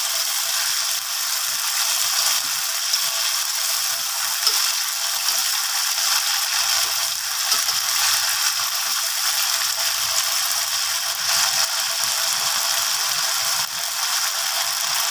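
Chilli and tomato sauce with chopped shallots, garlic and ginger sizzling in a hot wok with a steady hiss, while a metal spatula scrapes and stirs against the pan.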